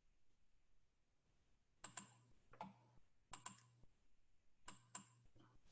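Faint computer keyboard keystrokes: short clicks coming in pairs about every second and a half, starting about two seconds in.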